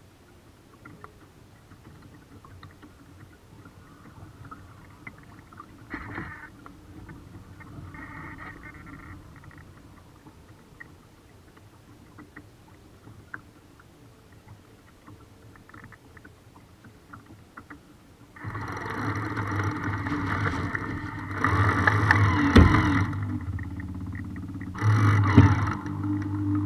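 Faint water lapping and splashing against the hull of a small RC sailboat, picked up by a camera on its deck. About two-thirds of the way through, loud distorted electric-guitar music comes in and carries on.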